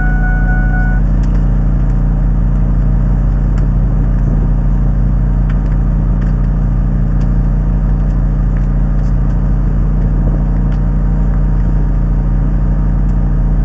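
Fire engine's engine running steadily at an even speed while its pump feeds a hose line, heard from inside the cab. A high steady tone sounds at the start and cuts off about a second in.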